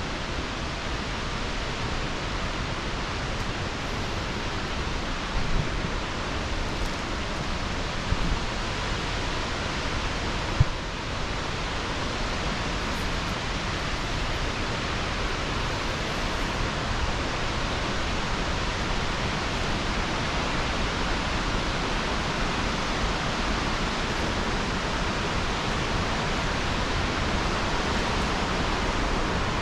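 Steady rushing roar of Ribbon Fall's water crashing down, growing slightly louder toward the end, with a few brief knocks early on.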